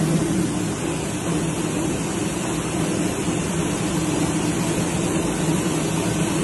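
Rice milling machinery running: a steady mechanical hum and whir, with grain sliding across a vibrating separator deck.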